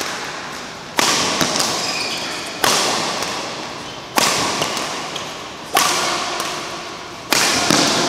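Badminton racket striking shuttlecocks in a steady drill rhythm: a sharp hit about every one and a half seconds, five in all, each ringing on in the large hall, with court shoes squeaking between hits.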